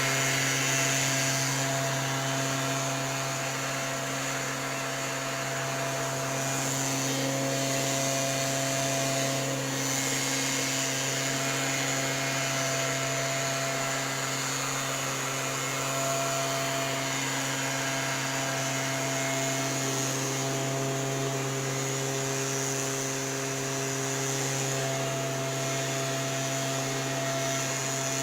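STIHL backpack mist blower's two-stroke engine running steadily at a constant speed, with the rush of its blower air.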